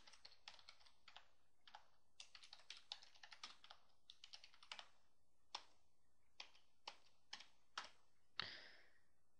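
Faint computer keyboard typing: keystrokes in quick runs, thinning to single spaced taps in the second half, with one slightly louder short noise near the end.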